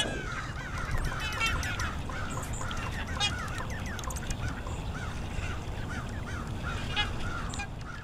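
A flock of large birds calling: many overlapping honking calls, some with a rattling edge, for the whole stretch.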